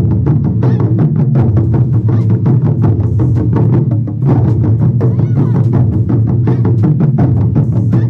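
Drum-led music: rapid, steady drumstick beats over a sustained low bass line, with a brief break about four seconds in.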